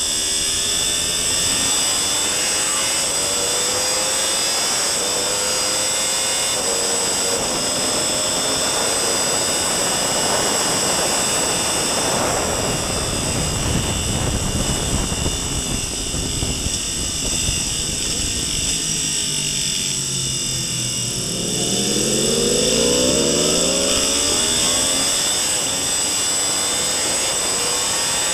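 Sport motorcycle engine at full throttle on a race track, heard onboard: revs climb gear after gear, then a dense wind roar at top speed. Revs drop under hard braking and downshifts, and climb again about twenty seconds in as it accelerates out of a first-gear hairpin.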